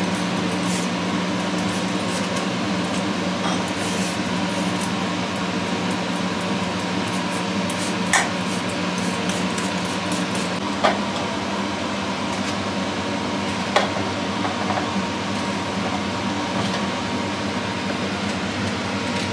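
Steady mechanical hum, with a few sharp knife clicks about 8, 11 and 14 seconds in as eggplant is peeled and sliced.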